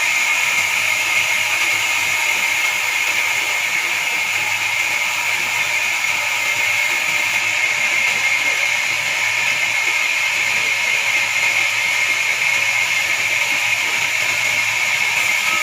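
Horizontal band sawmill cutting through a log: a steady high-pitched hiss of the blade in the wood, even throughout.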